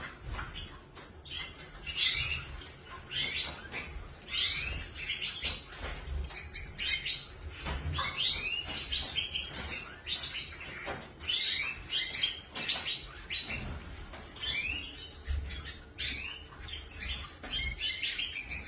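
Canaries chirping: short, quick sweeping chirps in clusters, repeating every second or so, over a faint low rumble.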